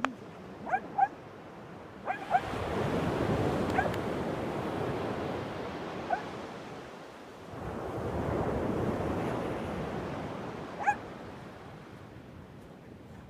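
Shetland sheepdog giving short, sharp, high yips, about seven scattered through, over ocean surf. Two waves break and wash in, the first swelling about two seconds in and the second about seven and a half seconds in.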